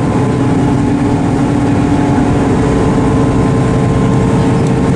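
Cog railway train's diesel engine and drive running with a steady drone, heard from inside the passenger car while the train is moving.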